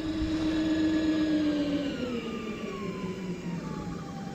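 Electric trolling motor whining steadily, then sliding down in pitch from about two seconds in as it is throttled back.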